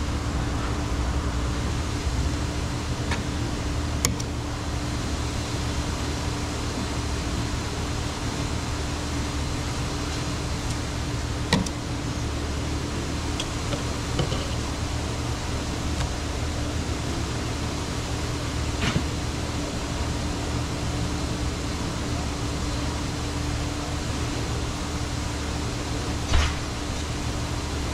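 Steady mechanical hum and hiss, with a few short, sharp knocks from the fillet knife against the fish-cleaning table.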